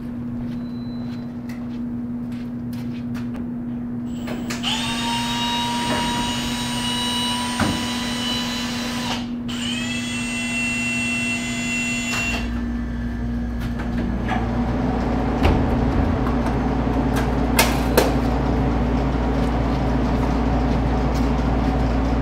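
Small electric drill whining in two runs, about five seconds and then about three, each rising in pitch as it spins up and then holding steady, as it is run into a vending machine's lock. A steady electrical hum lies underneath, and near the end a low rumble and a few sharp clicks are heard.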